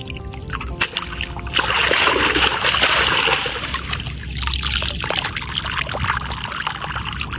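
Water splashing as a mesh hand net is swept through shallow muddy water and lifted, then trickling and dripping as it drains through the mesh. The loudest splash comes about two seconds in.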